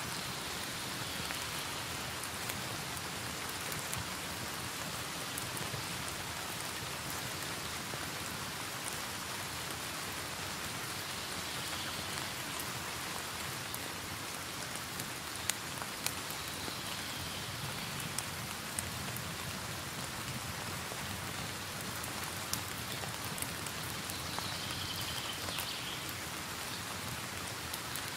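Steady rain hiss mixed with a burning wood fire, with scattered sharp crackles and pops standing out.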